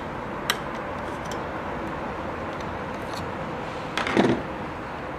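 Light metallic clicks, then about four seconds in a brief louder clattering rattle, from the exposed hook and feed mechanism of a Singer Stylist 522 sewing machine being handled and turned by hand during hook-timing checks. A steady hiss with a faint hum lies underneath.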